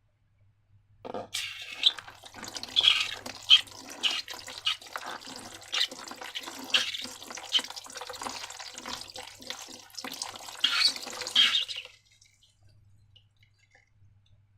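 Slime being squeezed and worked by hand: wet squelching and dripping with many small sticky clicks, stopping abruptly near the end.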